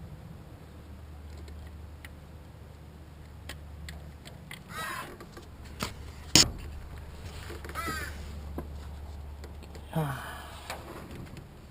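A bird calls three times, each call about half a second long and a few seconds apart. A single sharp knock between the first two calls is the loudest sound, with a few faint ticks around it.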